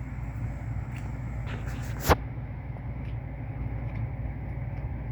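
Pokémon cards being handled and arranged on a table: light clicks and taps, with one sharp click about two seconds in, over a steady low background rumble.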